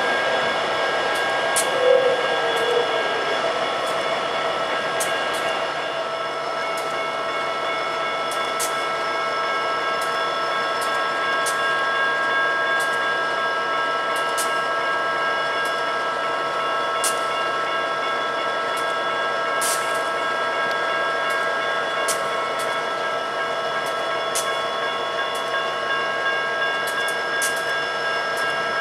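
Stationary diesel freight locomotives running, a steady hum made of several held pitched tones over a hiss, with scattered sharp clicks.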